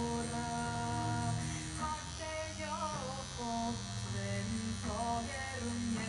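Music with singing plays over the steady electric buzz of a pen-style tattoo machine running while the needle works into skin.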